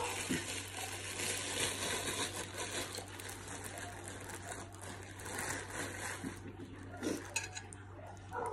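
Thin plastic bread bag rustling and crinkling as it is handled and opened to pull out slices of sliced white bread, settling down after about six seconds.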